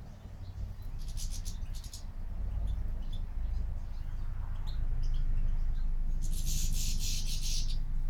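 Small songbird twittering in two quick high-pitched bursts, one about a second in and a longer one near the end, with a few single chirps between, over a steady low rumble.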